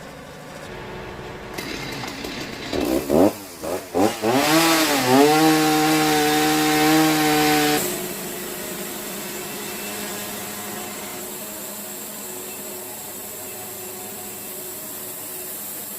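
Wood-Mizer LT70 band sawmill sawing a hickory log. About three seconds in, the pitch rises and settles into a steady whine. Near eight seconds it drops into a steady hissing cut that runs on.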